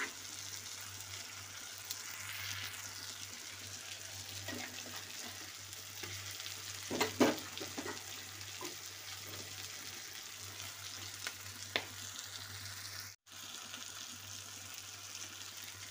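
Spiced masala sizzling in a kadhai while mashed boiled potatoes are stirred into it with a metal spoon. A few spoon scrapes and clacks against the pan come about seven seconds in and again near twelve seconds.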